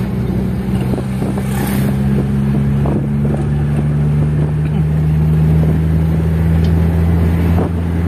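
Car engine and road noise inside the cabin while driving: a steady low drone whose pitch shifts slightly a few seconds in.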